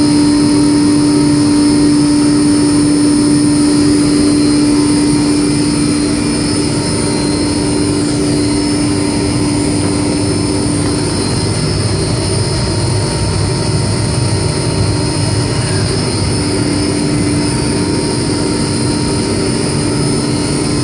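Laundry machine running with a loud, steady mechanical whirr and a strong motor hum. The hum drops out about eleven seconds in and comes back about five seconds later.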